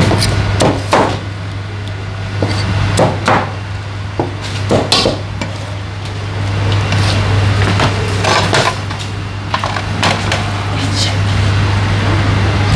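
Knife knocking on a wooden cutting board at irregular intervals while fruit is cut, over a steady low hum.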